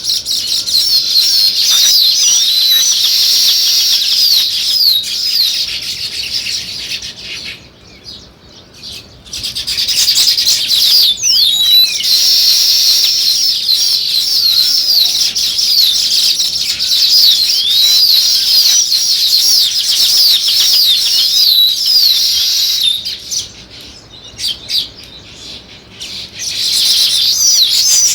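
House sparrows chirping in a dense, overlapping chatter of quick high chirps. The chatter thins out twice, about a third of the way in and again near the end, then picks back up.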